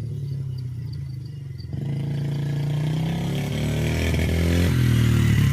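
Dirt bike engine running, then revving up about two seconds in and climbing in pitch; it drops back briefly near the end before climbing again.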